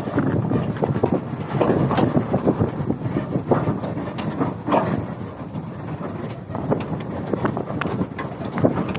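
Hyundai 210 crawler excavator running under load, a steady engine rumble with frequent irregular knocks.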